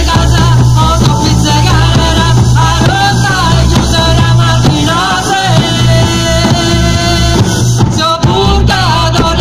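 Loud live folk music: a woman singing over a band in which many large frame drums (tammorre) are beaten together, with a steady bass line underneath.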